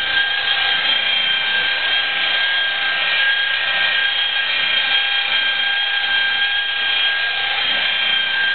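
Electric rotary polisher with a wool compounding pad running steadily against a car door's sanded clear coat, a high even whine at constant speed. It is cutting the paint back with rubbing compound and a little water.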